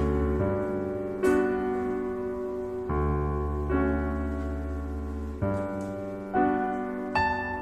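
Background piano music: struck chords that fade, with a new chord about every second.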